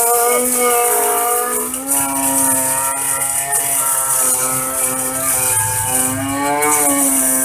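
Corn flour mill running while corn kernels are fed into its hopper: a steady motor hum whose pitch sags and recovers as the grain loads it, over a steady high hiss of milling.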